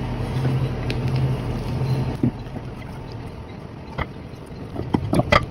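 A steady low motor hum that stops about two seconds in, followed by a few light clicks and knocks.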